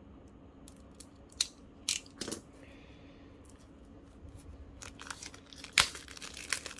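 Plastic shrink wrap being cut and peeled off a deck of game cards: scattered sharp crackles and snaps, with the loudest snap near the end.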